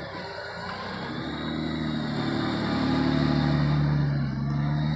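Honda Gold Wing motorcycle engine running at low speed as the bike circles slowly on throttle and clutch. The engine note rises a little and grows louder about halfway through, then eases.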